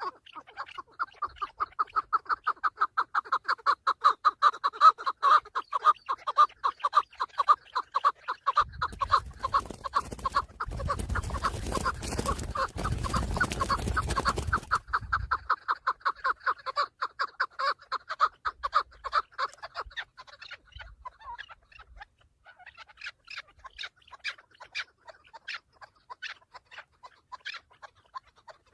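Chukar partridge calling: a long, fast run of clucking chuck notes that thins to scattered notes after about 20 seconds. A broad rushing noise runs under it from about 8 to 15 seconds.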